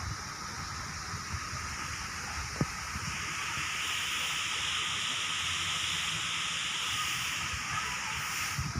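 A steady hiss that swells in about three seconds in and stops abruptly near the end, over low wind rumble on the microphone.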